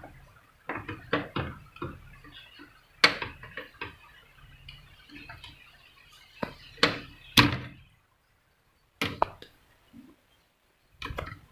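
Irregular clicks and knocks of hands working inside an opened CRT television, pulling the degaussing coil's connector off the board. The loudest knocks come about three seconds and seven seconds in.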